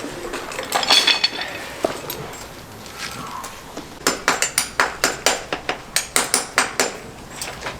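A farrier's hammer striking metal: a few light taps about a second in, then a steady run of about a dozen sharp, ringing blows at about four a second, as in working a horseshoe.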